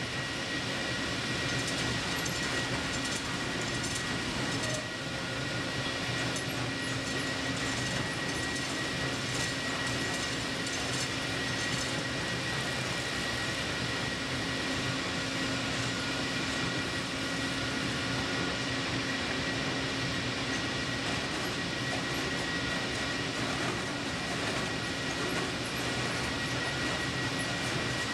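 Tunnelling machine's boom-mounted rotary cutter head grinding into rock, a steady grinding noise with a constant high whine running through it.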